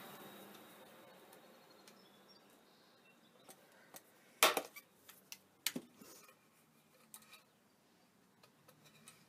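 Hand pop-rivet tool being worked and handled: sharp metallic clicks, two louder ones about four and a half and five and a half seconds in, with a few fainter clinks around them.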